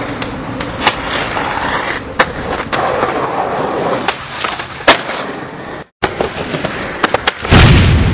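Skateboard urethane wheels rolling on concrete, broken by several sharp clacks of boards popping and landing. The sound cuts out briefly about six seconds in, and near the end a louder, rougher rumble of a board grinding along a curb takes over.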